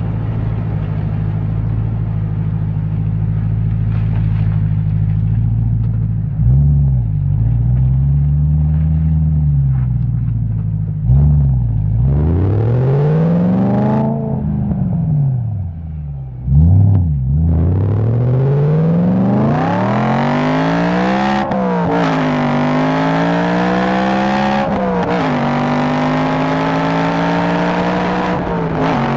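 BMW M3 E90's 4.0-litre V8 engine idling steadily, then blipped several times, each rev rising and falling. About eighteen seconds in it revs up hard and stays high, dropping sharply twice and climbing again.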